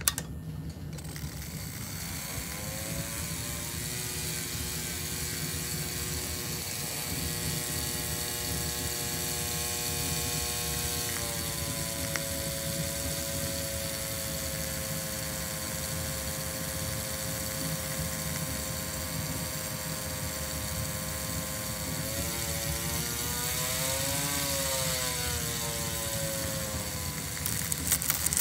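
Small brushed DC motor running hard, overdriven on purpose to burn it out: a whine that climbs as it spins up over the first few seconds, then holds steady over a constant brush hiss. About three-quarters of the way through the pitch wavers up and down, and there are a few louder crackles near the end.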